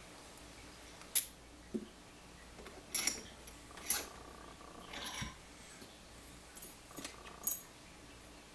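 Lockpicking tools on a small Kwikset-keyway lock cylinder clamped in a vise: a handful of small, scattered metallic clicks and taps, some with a faint high ting, as the tension wrench and pick are set in and worked.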